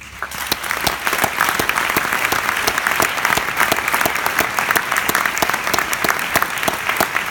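Audience applauding, many hands clapping; it starts suddenly, swells within the first second, then holds steady.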